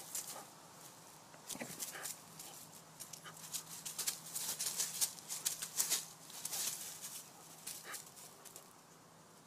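Dog scuffling in dry leaf litter as it goes at a snake, giving irregular rustling and crackling with a few short whimpers.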